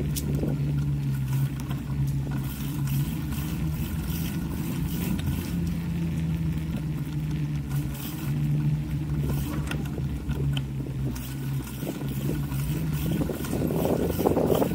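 Wind buffeting the camera microphone with a steady low hum and rumble while riding a bicycle along a paved street; the buffeting grows louder near the end.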